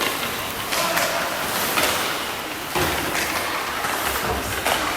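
Ice rink game noise: a steady scrape and hiss of skates on the ice, broken by four sharp knocks of sticks or the ring against the ice or boards, with faint voices in the background.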